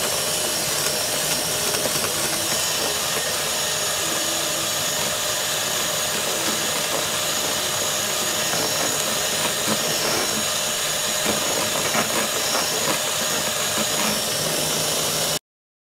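Electric hand mixer running steadily, its beaters whipping egg whites and sugar into meringue in a plastic container. The sound cuts off suddenly near the end.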